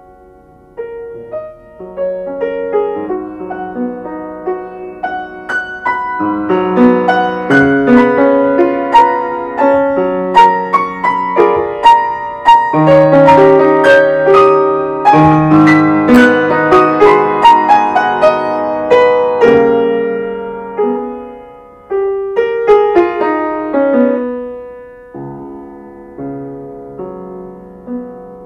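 Solo piano playing: it starts softly, builds to a loud, dense passage, and dies away about twenty seconds in. It then comes back with a sudden loud chord and goes on more quietly.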